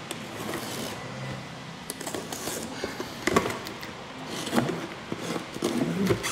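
Plastic packing tape being peeled and ripped off a cardboard box, in scattered crackling tears with rustling of tape and cardboard between them.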